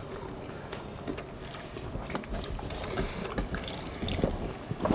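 Wet eating sounds of people eating with their hands: chewing and mouth clicks, with scattered light ticks of fingers picking through rice and noodles.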